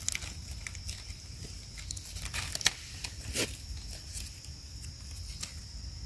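Dry leaf litter and twigs crackling and rustling underfoot and under hand, scattered irregular crackles with a couple of sharper snaps, over a steady high insect drone.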